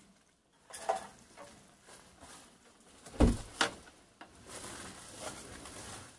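A few scattered knocks and thumps. The loudest are two deep thumps close together about three seconds in.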